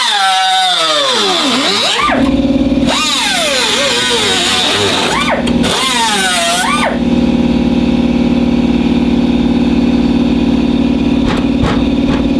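Power-tool motors running: a whine winds down over the first two seconds, then a steady machine drone sets in, with a motor's whine revving up and down several times. This fits cutting metal away from the body.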